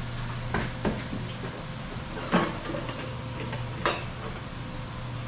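Dishes and containers being handled at a kitchen counter: a few short knocks and clinks, four of them spread over about three and a half seconds, over a steady low hum.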